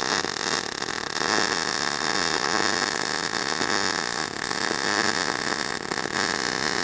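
MIG welding arc running with a steady, crackling buzz.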